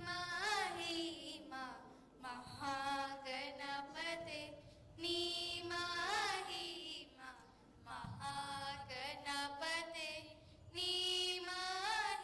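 Two girls singing a welcome prayer together into microphones, in long held phrases with sliding, wavering notes and short breaths between phrases.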